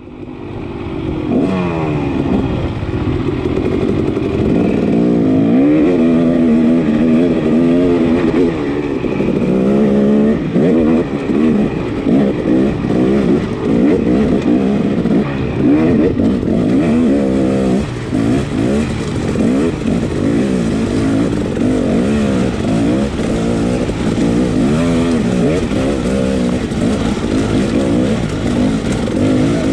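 KTM dirt bike engine running hard under load on a steep rocky climb. The revs rise and fall constantly as the throttle is worked, with the sound fading in over the first second.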